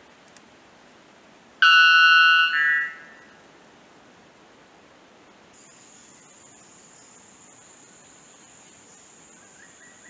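Male white bellbird giving a single very loud, ringing two-part call about a second and a half in, lasting about a second and a half, with the second part quieter. A faint steady high-pitched tone sets in about halfway through, over a constant background hiss.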